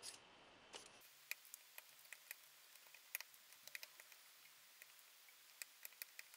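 Faint, sharp clicks of flush side cutters snipping off soldered component leads on a circuit board, one after another at an irregular pace.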